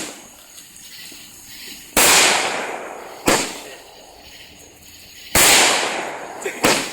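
Fireworks going off: four sharp bangs, the two loudest each trailing off over about a second.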